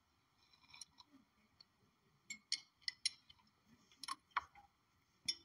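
A string of about a dozen faint, sharp clicks and light taps at irregular intervals. The louder ones fall around the middle and a little past it.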